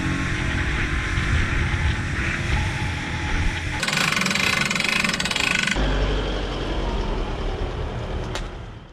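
Outboard motor running as the aluminium boat speeds over the water. About four seconds in, a boat trailer's hand winch is cranked with fast ratcheting clicks. After that, a low engine rumble, with a single click near the end.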